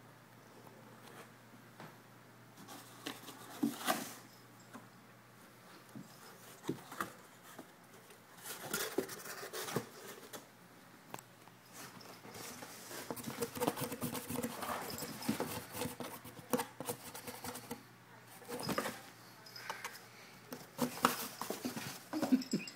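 Cats pawing and scrambling at a cardboard pet carrier: irregular scratches, taps and thumps of paws and bodies on the cardboard.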